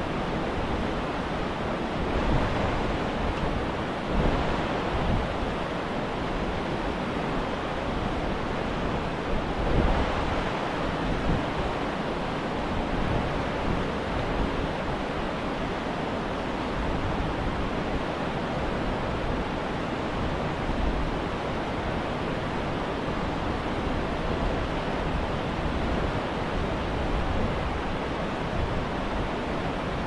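A fast mountain river rushing over boulders: a steady roar of white water, with now and then a low buffeting of wind on the microphone.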